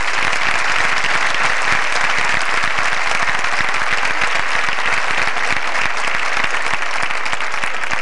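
Audience applauding: steady, dense clapping from a hall full of people.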